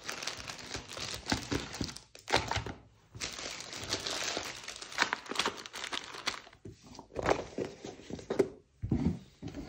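Plastic zip bags of board-game pieces crinkling as they are handled and packed into a cardboard box insert, with a few dull thunks as pieces are set down.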